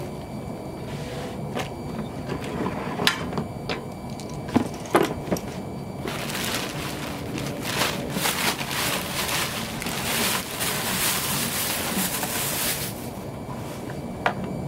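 Sharp clicks and knocks of hard plastic parts being handled, then about seven seconds of loud crackling rustle of packaging, which stops abruptly.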